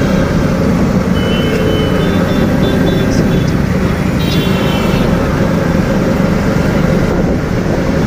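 Riding in an open-sided auto-rickshaw through city traffic: the three-wheeler's engine running under steady wind and road noise. Faint horn beeps from other traffic come about a second in and again after four seconds.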